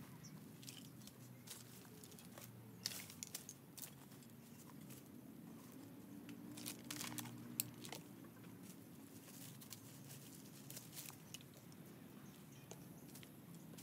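Dry leaves and twigs crackling and crunching in scattered bursts as they are handled and gathered from the ground.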